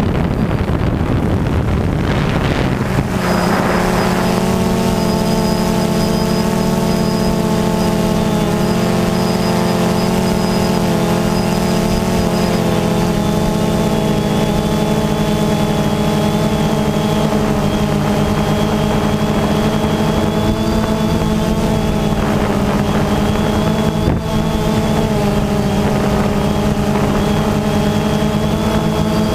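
DJI Phantom 2 quadcopter's four motors and propellers buzzing, heard from right under the rotors. The sound is mixed with wind rush for the first few seconds, then settles into a steady multi-tone drone as the aircraft holds its position.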